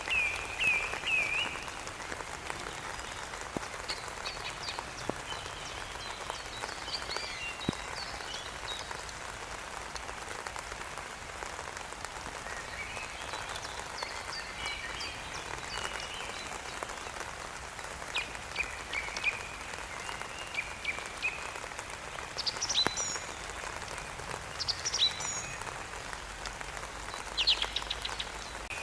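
Steady rain falling, with birds chirping and singing in short bursts of high calls that come and go.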